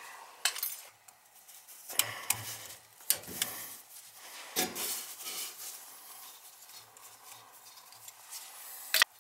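Metal tools and parts being handled at a boiler's gas valve: a handful of sharp clicks and knocks with scraping and rustling in between, the loudest knock near the end.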